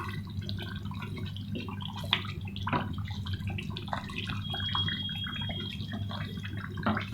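Sponge gourd curry cooking in the pan, with a steady crackle of small pops and drips, and a few sharp clicks of a spoon against the pan about two and three seconds in.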